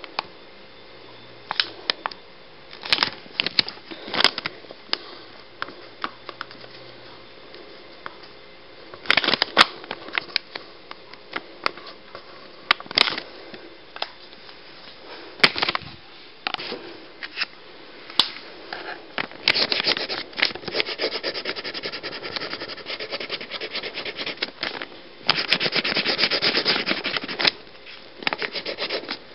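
Black permanent marker drawing on a printed photo: irregular short strokes and taps of the tip on the paper, with two longer runs of rapid back-and-forth scribbling, one about two-thirds of the way through and one near the end.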